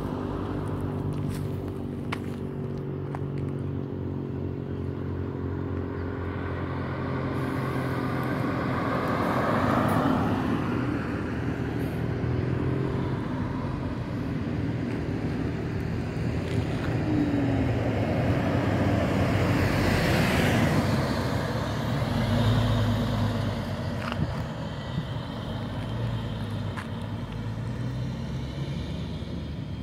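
Road traffic: a city bus's engine runs with a steady low hum while vehicles pass by in swells of engine and tyre noise, loudest about 10 and 20 seconds in.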